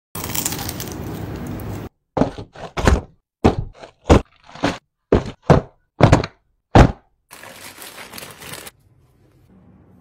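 About two seconds of rough crackling noise, then a quick run of about a dozen sharp thuds over five seconds, some two a second, followed by a short hiss.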